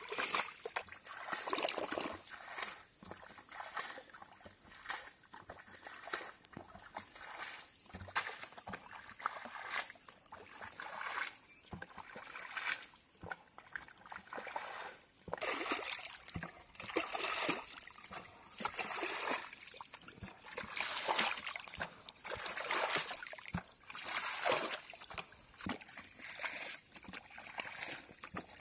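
Water in a shallow, muddy pond splashing and trickling in irregular spurts, busier and louder in the second half.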